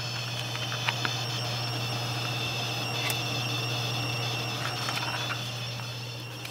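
Corsair AX1200 power supply's coil whine under load: a steady high-pitched whine of several close tones over a steady low hum, with a few faint clicks. The whine is a defect in this unit.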